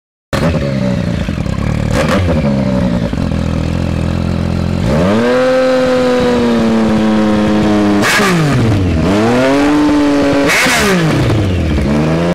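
Yamaha MT-09/FZ-09 inline three-cylinder engine through an aftermarket exhaust. It starts suddenly at a steady idle, then the revs rise to a held higher speed for about three seconds. Near the end the throttle is blipped twice, the pitch dropping and climbing back each time, with a couple of short sharp cracks from the exhaust.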